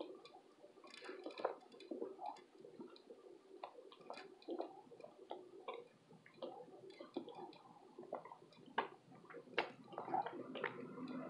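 Close-up biting and chewing of a baked cornstarch brick: irregular sharp crunches and crackles as the chalky chunks break in the mouth.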